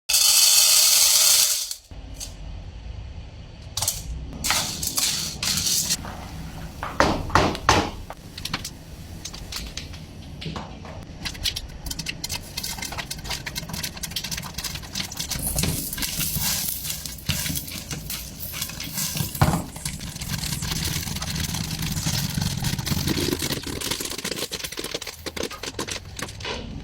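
Popcorn popping: many irregular sharp pops and rattles over a steady low hum. It starts with a loud hiss lasting about two seconds.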